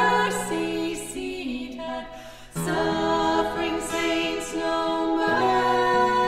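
Background music: a women's vocal ensemble singing a slow hymn in long held notes. One phrase fades out about two seconds in, and the next begins about half a second later.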